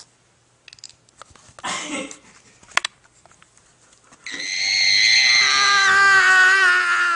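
A young man's long, high-pitched scream lasting about three seconds, starting about four seconds in, wavering and sliding down in pitch as it cuts off. Before it, a brief rasping noise and a single sharp click.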